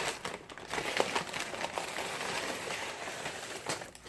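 Takeout food packaging crinkling and rustling as it is handled and opened, a steady run of small crackles with a few sharper ones about a second in.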